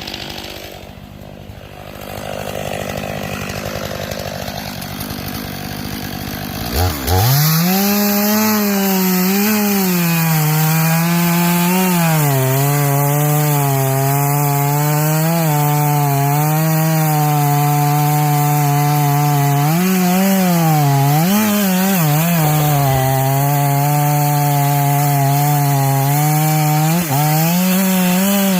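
Chainsaw running low for about seven seconds, then opened up to full throttle and cutting wood. The engine pitch dips and recovers as the chain loads up in the cut.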